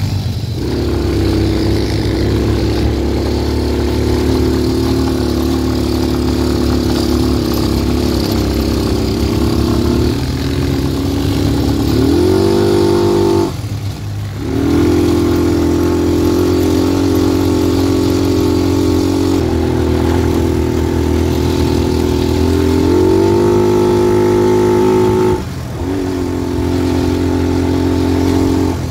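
Quad bike engine running under way. Its pitch climbs twice, about halfway through and again near the end, and each time it cuts back sharply for a moment before settling at a steady pitch again.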